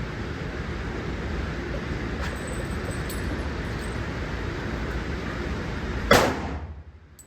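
Steady background noise, then a single loud gunshot about six seconds in, with a short echo.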